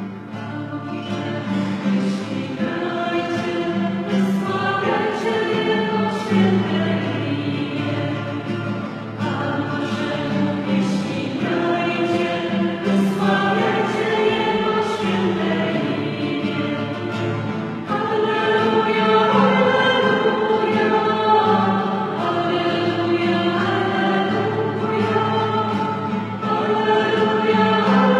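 A choir singing a hymn in long held notes.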